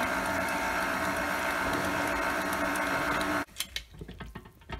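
Electric stand mixer running at one steady speed, beating cake batter in a stainless steel bowl, then switched off suddenly about three and a half seconds in, followed by a few faint clinks.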